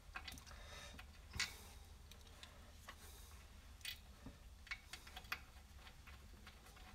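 Faint, irregular clicks of a hand ratchet and metal parts as a bolt on a car alternator is worked loose, over a faint low hum.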